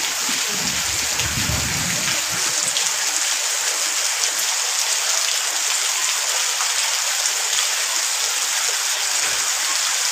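Heavy rain pouring down on trees and foliage, a steady dense hiss, with some low rumbling during the first two seconds.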